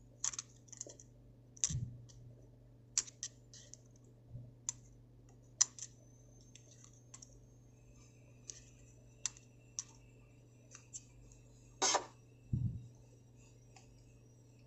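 Scattered small clicks and a few soft knocks from handling a Zippo-style lighter and its fluid bottle while the cotton wadding is wetted with lighter fluid, with one sharper click about twelve seconds in.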